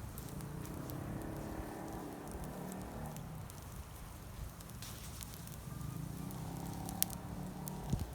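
Wood campfire crackling, with a few sharp pops of burning wood over a steady low rumble; the loudest pop comes about seven seconds in.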